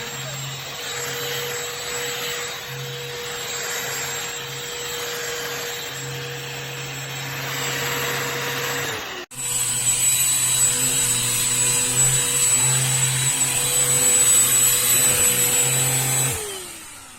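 Shark CH951 UltraCyclone cordless handheld vacuum running steadily with a motor whine. There is a brief break about nine seconds in, then it runs louder. Near the end it is switched off and the motor winds down.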